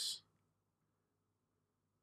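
Near silence: room tone with a faint steady low hum, after the tail of a spoken word at the very start.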